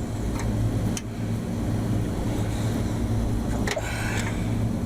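Steady electrical hum of rooftop air-conditioning equipment running, with two sharp clicks about one second and four seconds in and a brief higher tone just after the second click.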